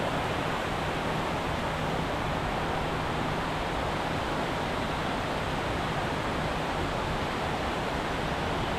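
Steady rush of water pouring over a small weir waterfall.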